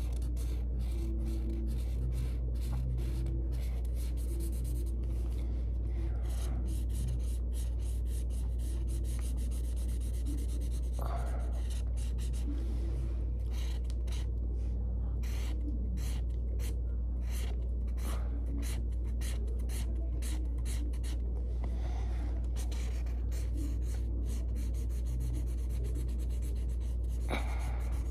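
Felt-tip marker rubbing back and forth on paper while colouring in, in many quick short strokes, over a steady low hum.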